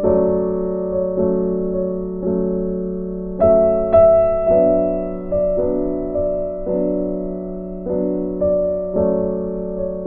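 Slow, gentle piano music: notes struck about every half-second to a second and left to ring and fade over sustained chords.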